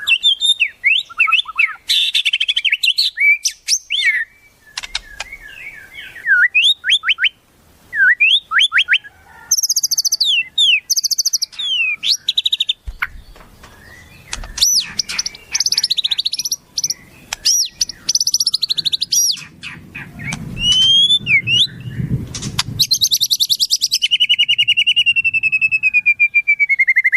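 Wild songbirds calling and singing in quick succession: sharp whistles, fast chirps and rising and falling sweeps, with a low rumble underneath for a few seconds past the middle. Near the end comes a long, rapid trill that slides steadily down in pitch.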